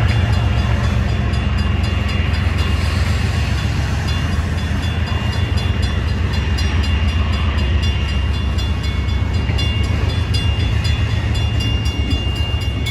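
Freight train rolling past at close range: a steady low rumble of its cars on the rails.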